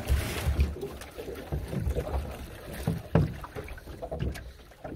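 Wind buffeting the microphone aboard a small open fishing boat at sea, an uneven low rumble in gusts, with a couple of light knocks from movement on board about three and four seconds in.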